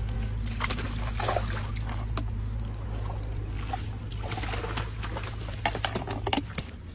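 Water splashing and dribbling in scattered small bursts as a hooked fish thrashes at the surface and is scooped up with a landing net, over a steady low hum.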